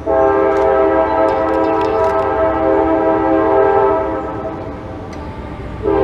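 Train horn blowing a long, steady chord of several notes that starts sharply, holds for about four and a half seconds and then trails off, with a short blast beginning right at the end.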